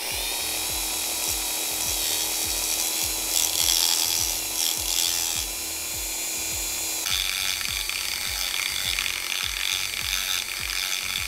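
A Dremel rotary tool runs at speed with a sanding drum grinding down the blade tips of an APC model-airplane propeller, to shorten them. It makes a steady high whine over a rough sanding rasp, and its tone shifts about seven seconds in as the drum moves on the blade.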